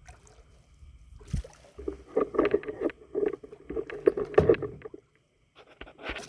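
Paddling a canoe: a low thump, then a quick run of paddle splashes and knocks against the canoe for a few seconds, stopping about five seconds in.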